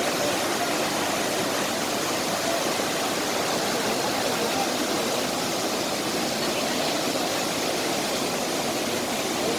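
The Iguazu Falls' water pouring down in a steady, even rush with no breaks or changes.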